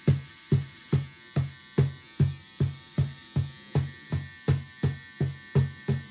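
Wooden cajón struck by hand in a steady, even beat of deep bass strokes, about two and a half a second. A steady buzzing hum runs underneath.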